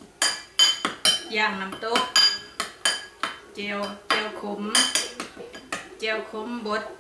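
A metal spoon repeatedly clinking and scraping against a bowl while mixing a sauce, with irregular sharp, ringing clinks several times a second.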